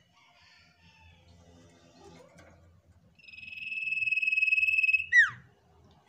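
Common iora (cipoh) singing: a few faint soft chirps, then a long steady high whistle of about two seconds that swells in loudness and ends in one sharp, quickly falling note.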